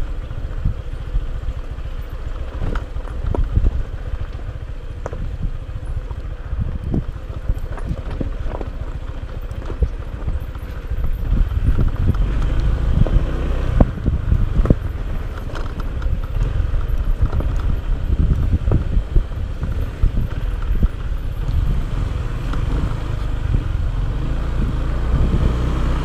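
Motorcycle engine running at low speed as the bike rides over a rough, rocky dirt trail, with scattered knocks as it jolts over stones. It gets a little louder about halfway through.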